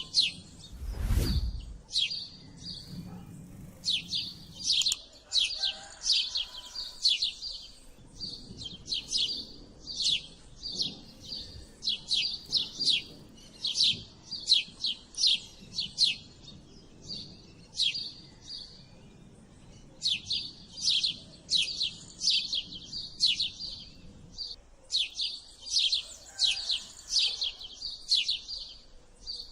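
House sparrows chirping: rapid runs of short, sharp chirps, repeated in bursts with brief pauses. A low thump sounds about a second in.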